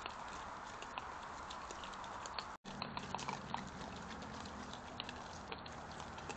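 European badgers feeding on a lawn: scattered small crunches and clicks of eating over a steady microphone hiss. The sound cuts out for an instant about two and a half seconds in.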